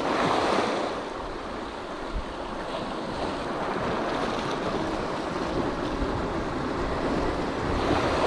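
Sea surf washing on the shore: a steady rush of waves that swells as a wave breaks at the start and again near the end.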